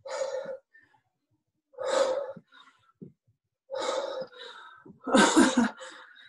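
Hard, rhythmic breaths of a person doing kettlebell swings, heard over a video-call link: four short forceful exhalations about every second and a half to two seconds. The last, about five seconds in, is the loudest and has some voice in it.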